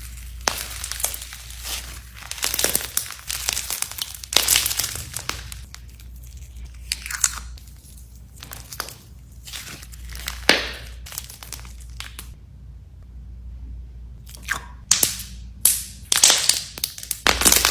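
Slime being squeezed and pressed by hand, making irregular crackling and popping noises in bursts, with a pause of about two seconds after the middle.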